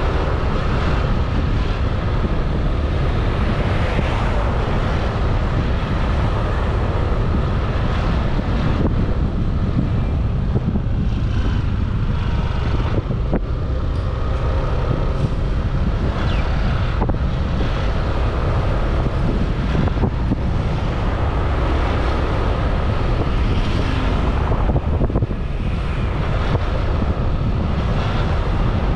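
Steady wind rumble on the microphone of a moving scooter, over road and traffic noise.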